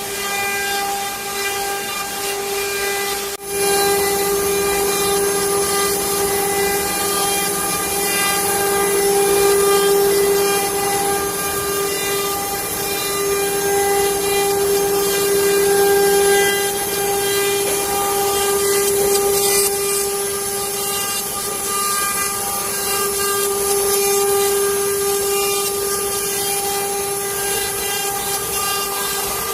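CNC wood-carving router running with a steady high whine from its spindle over a hissing noise, with a brief drop-out about three and a half seconds in.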